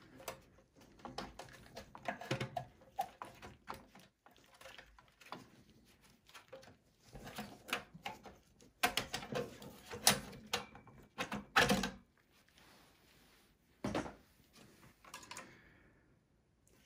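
Irregular clicks and knocks of hands working a desktop PC: a graphics card released from its slot clip and pulled out of the slot, with the steel case knocked and shifted about. The loudest knocks come about two-thirds of the way through.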